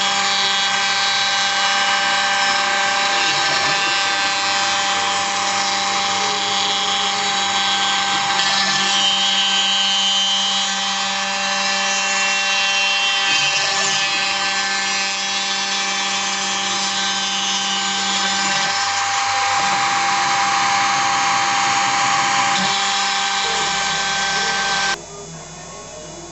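Spindle of a HobbyCNC milling machine running steadily with a high whine while it mills a guitar pickup part. Near the end it cuts off suddenly and a much quieter hum remains.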